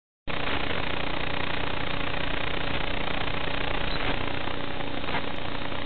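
Steady, even hiss like radio static with a faint low hum running under it, cutting in abruptly a moment in. It does not change as the quadcopter lifts off.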